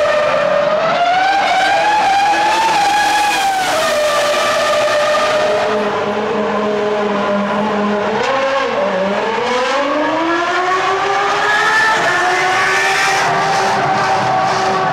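2004 Formula One cars' V10 engines running on the circuit, a high-pitched note that rises and falls as they change revs. More than one engine is heard at once; about nine seconds in, one note dips and then climbs steadily.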